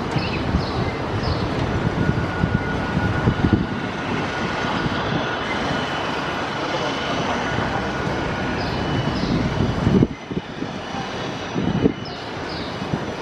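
Jet engines of a Ryanair Boeing 737-800 (CFM56-7B turbofans) running at taxi power, a steady loud roar with a faint high whine. The roar dips briefly about ten seconds in.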